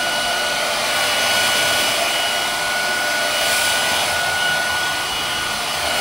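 Havells HD3276 2000-watt hair dryer running steadily: an even rush of blown air with a high motor whine held on top.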